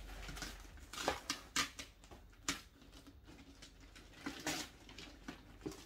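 Gift-wrapping paper crinkling and rustling as it is peeled off a box by hand, with a few sharper crackles.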